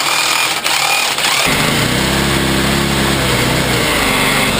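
Small single-cylinder GX200-clone engine running with a belt-driven, 3D-printed Roots supercharger blowing into it. About a second and a half in the sound changes abruptly to a steadier, lower engine note.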